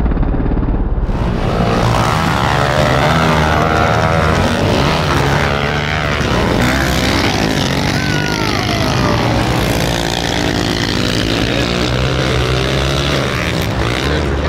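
Several pit bike engines revving hard together, their pitch rising and falling as the riders work the throttles.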